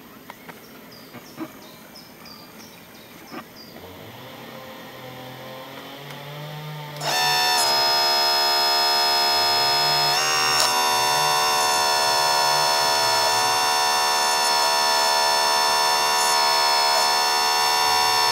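A few faint clicks, then about seven seconds in the hydraulic pump of a Leimbach RC model hydraulic excavator starts and runs with a loud, steady buzzing whine.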